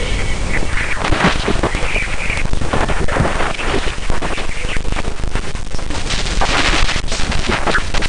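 Space radio-wave recording of Ganymede played as audio: dense crackling static full of rapid clicks, with a short high whistle about two seconds in.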